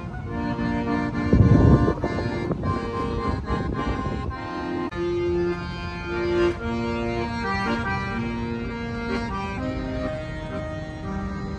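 Accordion playing a tune of held notes that change every half second or so, with a brief loud rumble about a second and a half in.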